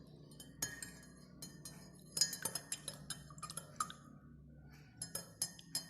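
A spoon clinking against a drinking glass while stirring a drink, in irregular clusters of light, sharp taps.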